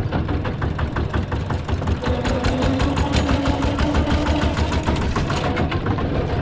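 Rice combine harvester's engine running, with a fast, even knocking rhythm. A steady hum joins about two seconds in and fades out after a few seconds.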